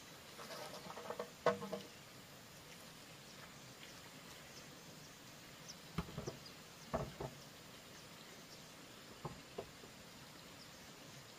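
A few light, irregular knocks and taps, the sharpest about a second and a half in, then more around six, seven and nine seconds in. Faint high bird chirps sound now and then over a soft steady hiss.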